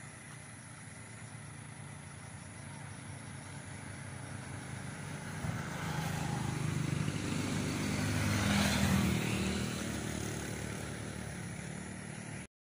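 A motor vehicle engine going past: it grows steadily louder, is loudest about nine seconds in, then fades, and cuts off suddenly near the end.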